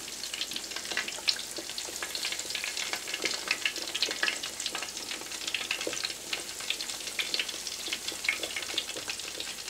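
Hot oil sizzling and crackling steadily around nacho-breaded chicken patties deep-frying in a cast-iron skillet, as the patties are turned over with a slotted spoon.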